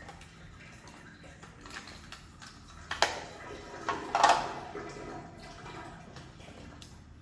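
Water running and splashing in a small room, with two sharp, louder sounds about three and four seconds in.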